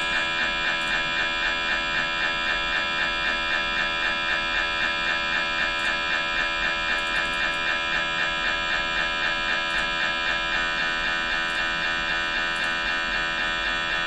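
GE MRI scanner acquiring an axial FRFSE T2 (fast spin echo) sequence: a loud electronic buzz of many steady pitches with a fast rhythmic beating from the gradient coils. The beating evens out about ten and a half seconds in.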